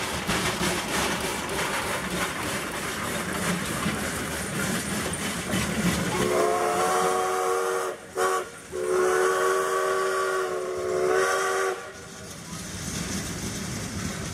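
Replica Shay geared steam locomotive passing with steam hissing, then its whistle sounds a chord of several notes about six seconds in: a long blast, a short one, and a second long blast that cuts off near the end.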